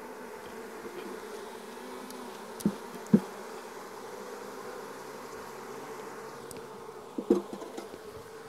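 Honey bees buzzing in a steady hum around frames being moved from a nuc into a hive. Sharp wooden knocks sound twice about three seconds in and several times near the end as frames are set against the hive box.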